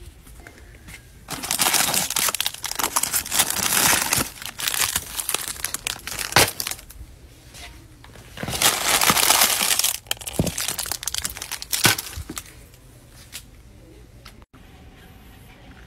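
Crinkling, rustling handling noise in several bursts, loudest from about a second and a half to four seconds in and again from about eight and a half to twelve seconds, with a few sharp clicks between; it dies down to quiet room noise near the end.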